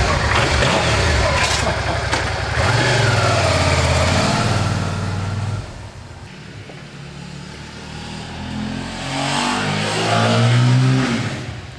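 Suzuki SV650S V-twin motorcycle engine revving as the bike pulls away, dropping off sharply about five and a half seconds in. It grows louder again with climbing revs from about eight seconds, then fades near the end.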